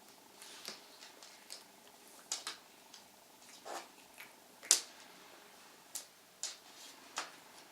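A cat pawing and tugging at shoes and their shoelaces: irregular short scratchy rustles and taps, the loudest about halfway through.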